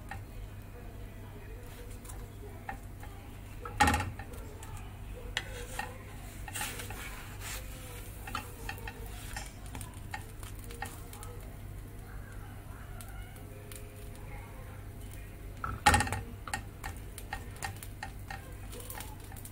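Cheese sandwich toasting on a flat griddle, sizzling faintly under a steady low hum. A slotted spatula scrapes and taps as it presses and shifts the sandwich. Two sharp knocks, about four and sixteen seconds in, are the loudest sounds.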